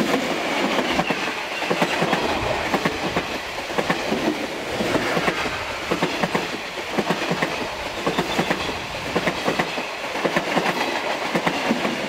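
Electric commuter train passing close by, its wheels clattering over the rail joints in many quick, irregular clicks over a loud rushing rumble.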